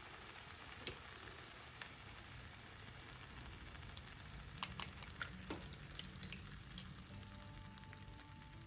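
Mashed banana paste frying in ghee in a pan: a faint steady sizzle with a few sharp pops and crackles about halfway through, as strained jaggery water is poured in.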